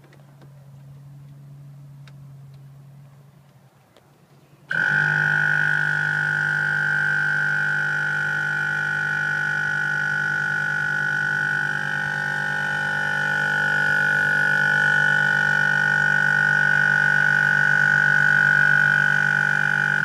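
Viair 12-volt air compressor kicking on suddenly about five seconds in and running steadily, filling the air tank of a train-horn kit: a low rapid pulsing under a high steady whine.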